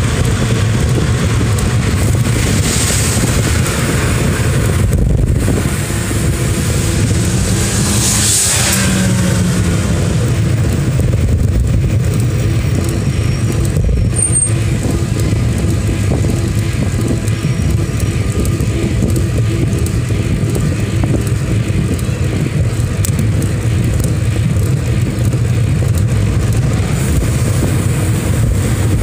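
Steady traffic and riding noise: a steady low engine hum with wind rushing on the microphone. About eight seconds in, a vehicle passes with a falling pitch.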